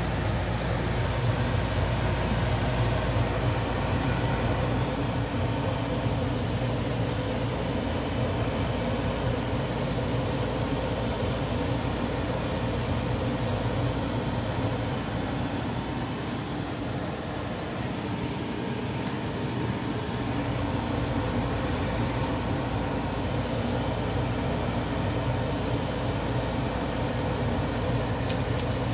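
Steady mechanical hum with low droning tones and an even rushing noise over it, unchanging throughout.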